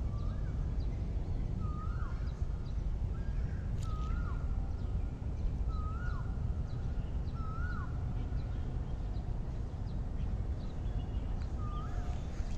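An animal's short hooked call, rising then dropping sharply, repeated about every one to two seconds, over a steady low rumble.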